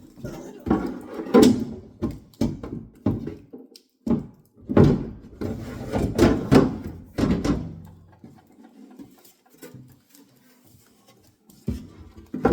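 Knocking, thunks and scraping from handling the parts of a new refrigerator being unpacked, busy at first and quieter for the last few seconds.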